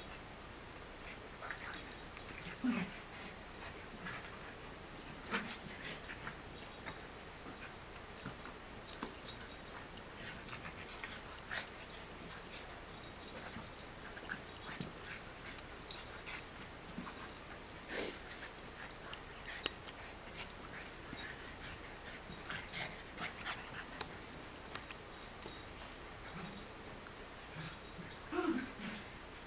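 A dachshund and a French bulldog play-wrestling: scattered short dog vocalisations, whimpers and yips, mixed with brief scuffling clicks and knocks at irregular moments.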